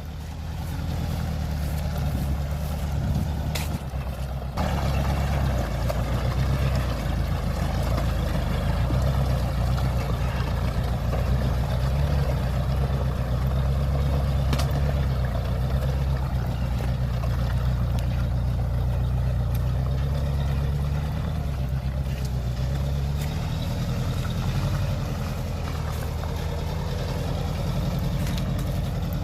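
A motor vehicle's engine running steadily, getting louder about four and a half seconds in and easing off a little near the end.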